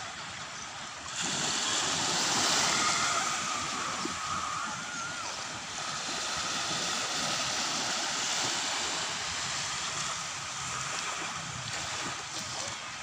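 Small sea waves washing and breaking at the shoreline, a steady hiss of surf that grows louder about a second in.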